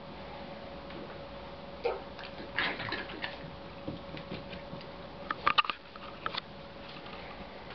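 Claws and paws of a Belgian Shepherd Groenendael puppy and an adult dog clicking and scuffling on hardwood floor and rug as they move about. The clicks are scattered, with short clusters about two seconds in, around three seconds in, and a louder cluster about five and a half seconds in.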